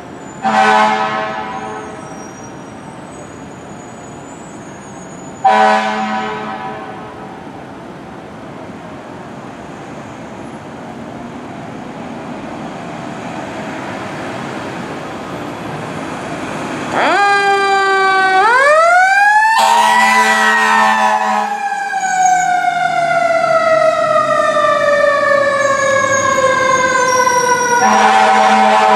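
Fire engine air horns blasting twice, a few seconds apart. Later the siren rises steeply to a peak and then falls slowly as the engine approaches, with the air horns blasting over it twice more.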